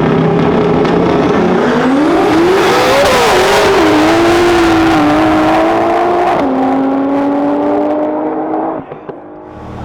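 High-powered race cars accelerating hard in a drag race, engine note climbing in pitch through gear changes and then holding high. The pitch drops suddenly about six and a half seconds in, and the sound falls away near the end.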